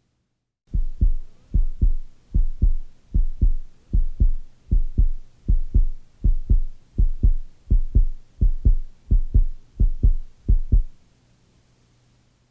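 Heartbeat sound effect: a steady lub-dub of paired low thumps, a little over one beat a second, starting just under a second in and stopping near the end.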